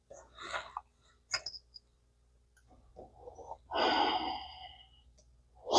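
A man breathing hard through the nose in short puffs and one longer exhale, with a light click or two from small reel parts being handled.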